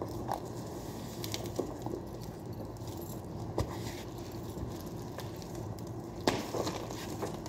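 Yellow plastic strapping being handled and pulled around a cardboard cargo box: scattered light clicks and rustles, with one sharp knock about six seconds in, over a steady low hum.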